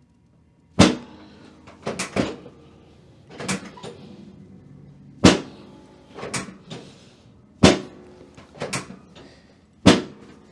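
Chiropractic drop table's section dropping under the adjuster's thrusts: a series of sharp clunks about every one to two seconds, four of them louder, with smaller knocks in between.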